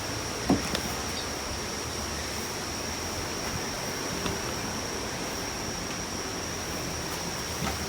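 Steady rushing noise of typhoon wind and rain, with a thin steady high tone over it and a few short knocks, the loudest about half a second in and fainter ones near the middle and the end.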